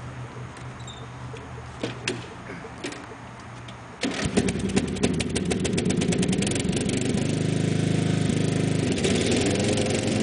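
1994 Sears Craftsman lawn tractor engine starting: about four seconds in it catches suddenly with a burst of rapid, uneven firing, then settles into steady running. Before that there is only a low steady hum with a few clicks.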